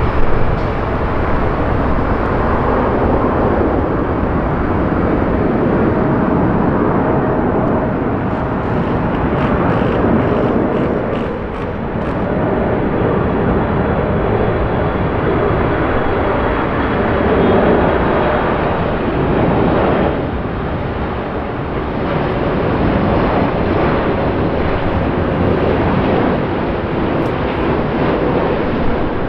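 Four GEnx turbofan engines of a Boeing 747-8 on final approach, giving a steady jet noise with a faint high whine that swells slightly as the airliner nears.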